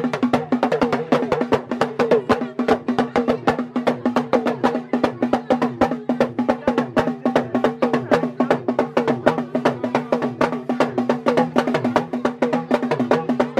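Background music driven by fast, dense drum and wood-block percussion over a steady low held tone.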